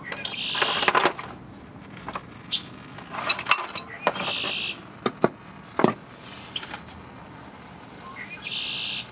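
Metal hand tools clinking and knocking against an engine being taken apart, with three short raspy bursts about half a second long near the start, in the middle and near the end.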